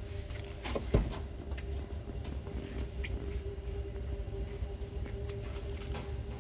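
Steady low hum of an indoor room with a thin constant tone, broken by a few light knocks and clicks. The sharpest knock comes about a second in.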